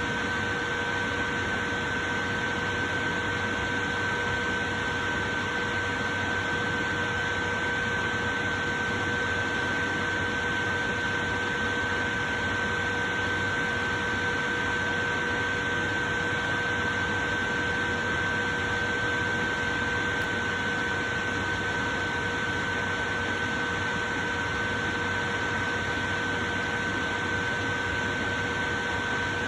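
Portable electric fan running steadily: an even rush of air with a steady motor hum riding on it.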